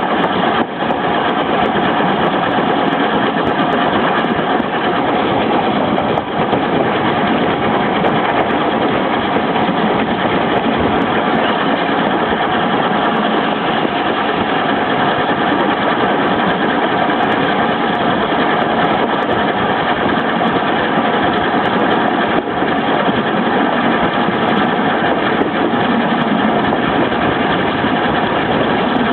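Steam-hauled passenger train running: a steady, unbroken rumble and hiss with faint steady tones in it.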